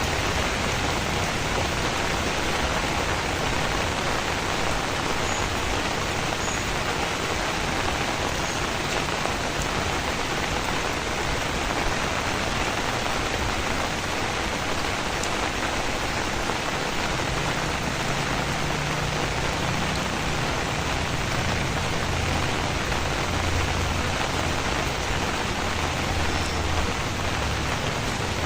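Heavy rain falling steadily in a dense, even hiss. In the second half a low rumble joins in underneath.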